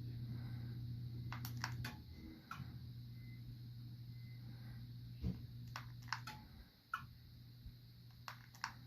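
GE ceiling fan running with a steady low motor hum that weakens about two seconds in and again near seven seconds, with scattered light clicks and ticks throughout.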